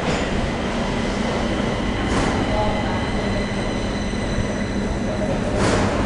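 Steady mechanical rumble with a constant low hum and faint high steady whine, swelling briefly twice.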